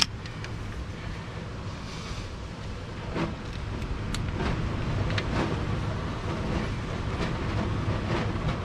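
Small clicks and knocks from hand tools and wiring being handled at a 12-volt battery under a vehicle: one sharp click at the start, then a few faint clicks, over a steady low background rumble.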